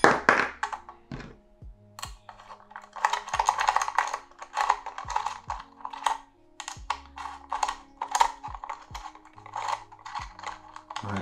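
Small metal clicks and taps of an Allen key turning screws out of a Neewer V-mount battery plate, with the plate being handled. The clicks come irregularly, several a second at times.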